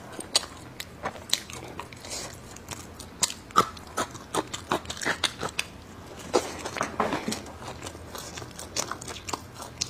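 Close-miked chewing of steamed bun and crunchy pickled ginger slices: an irregular stream of wet mouth clicks and crisp crunches.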